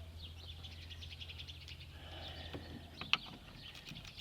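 Small birds chirping in the background, with a steady low hum underneath and one sharp click about three seconds in.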